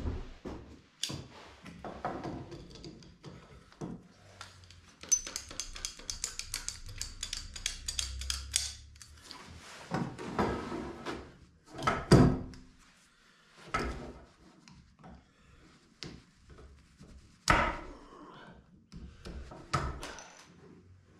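Tools and materials being handled on a wooden workbench: scattered knocks and clatter, with a run of rapid clicking in the middle and two louder knocks, one about halfway through and one a few seconds later.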